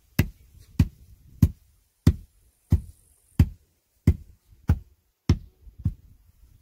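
Rubber mallet knocking a field stone down into wet concrete: about ten dull, evenly paced blows, roughly three every two seconds.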